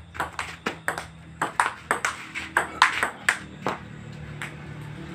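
A fast table tennis rally: a celluloid ball clicking off paddles and bouncing on a plywood-board table, about four hits a second, stopping about three and a half seconds in, with one last tap a second later.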